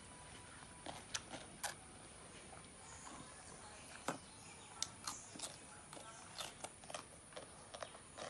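A child eating salted cucumber slices: faint, irregular crunches and lip smacks while picking slices from a steel bowl.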